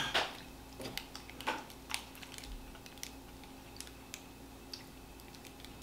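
Faint scattered clicks and crinkles of a candy wrapper being handled, with chewing, a few sharper ticks in the first two seconds.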